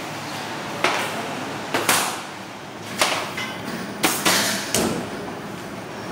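Sharp metallic knocks and clanks, about seven in four seconds, from a stainless steel baking frame being worked loose with a knife and lifted off a slab of confection, over a steady background hum.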